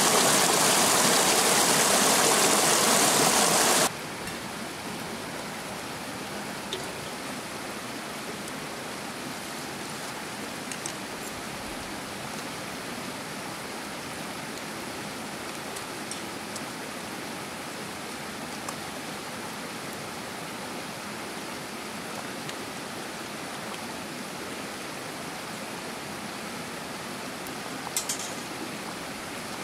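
Creek water rushing close by, loud for the first four seconds, then cutting abruptly to a quieter steady rush of water with a few faint ticks and a short clatter near the end.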